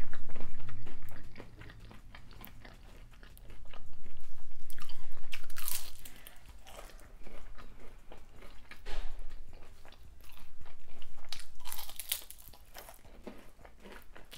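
Close-miked chewing of crunchy fried hot Cheeto-crusted seafood, in three loud bouts of crunching with quieter chewing between.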